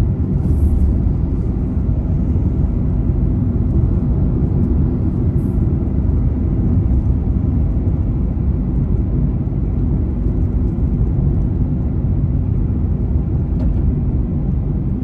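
Steady low rumble of a car driving along a highway: tyre and engine noise at highway speed.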